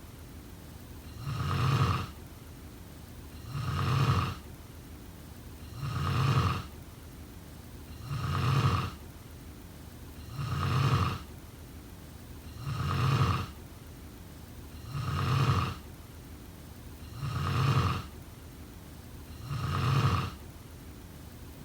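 Snoring: nine even, near-identical snores, one about every two and a quarter seconds, each lasting about a second.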